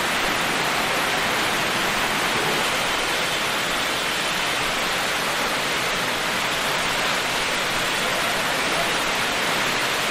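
Torrential rain falling in big, heavy drops: a steady, dense hiss that does not let up.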